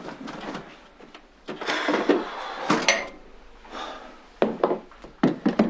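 Kitchen handling sounds: a plastic jug and things on the counter being moved. There is a longer rustling stretch about a second and a half in and a few sharp knocks near the end.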